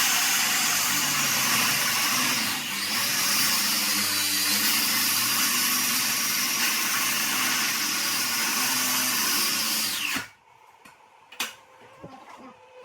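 A power tool, such as a drill or saw, runs loud and steady with a slightly wavering pitch, then cuts off suddenly about ten seconds in.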